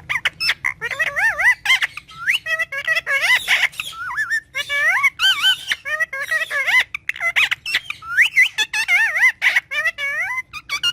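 A parrot chattering in a rapid run of warbling, wavering whistles and squawks, phrase after phrase with only short breaks.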